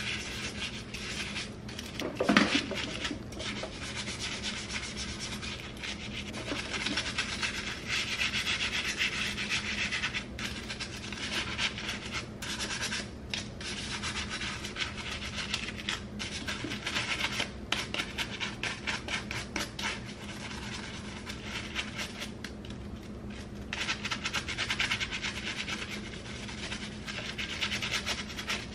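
Stiff bristles of a small scrub brush scrubbing plastic hair brushes and a comb over soapy water: a continuous, rapidly fluttering scratching rub. There is one louder knock about two seconds in.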